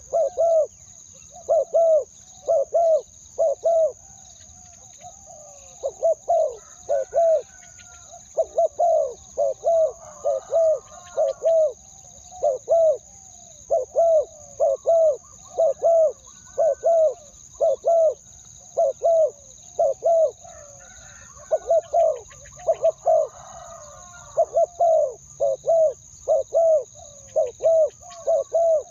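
Spotted dove, a decoy bird, cooing over and over in short two- and three-note phrases, its call used to lure wild doves in.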